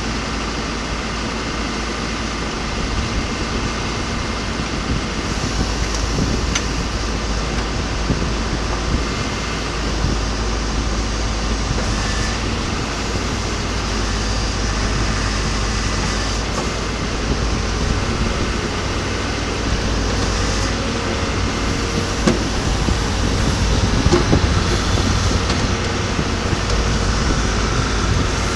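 John Deere 310SJ backhoe loader's diesel engine running steadily, a low rumble with small swells in loudness.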